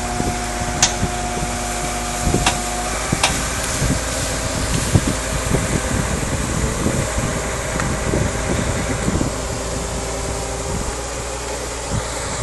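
Truck engine running steadily at idle, a continuous low hum, with a few sharp clicks in the first few seconds.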